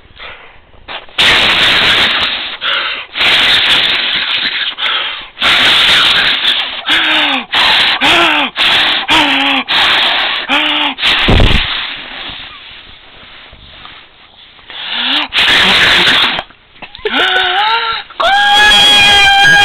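A pet sneezing and snorting over and over: a long run of short, loud bursts of breath, some with a brief falling squeak. Near the end a steady high-pitched whine starts.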